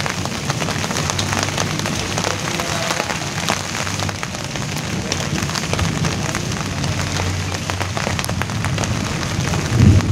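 Rain falling steadily on a broad leaf: a continuous hiss with many separate sharp drop taps. A louder low rumble swells up near the end.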